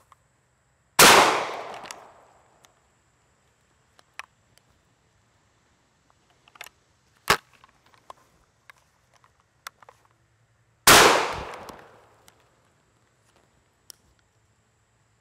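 Two .410 shotgun shots from a Savage Model 42 single-shot break-action, about ten seconds apart, each trailing off over about a second. Between them come faint clicks and one sharp snap about seven seconds in: the action being opened, reloaded and closed.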